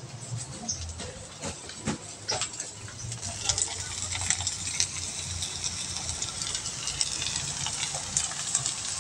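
Sliced okra frying in hot oil in a wok: a crackling sizzle that grows denser from about three seconds in.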